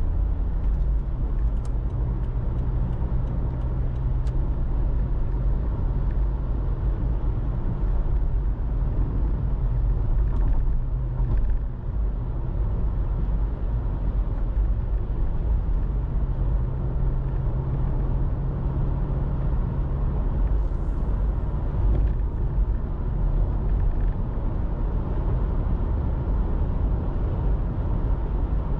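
A car driving: steady low road and engine rumble with a low engine hum that comes and goes, and a short run of light, evenly spaced ticks in the first few seconds.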